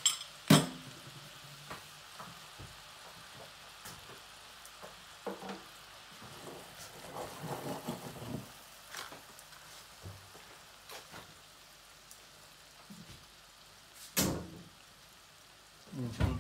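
Spiced butter simmering in a stainless steel pot for Ethiopian niter kibbeh: a faint, steady sizzle with small scattered crackles as the milk solids cook out and separate. Two sharper knocks stand out, one about half a second in and one near the end.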